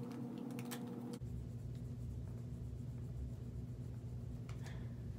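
Faint scratchy rubbing and handling noises, a few short strokes near the start and again near the end, over a steady low hum.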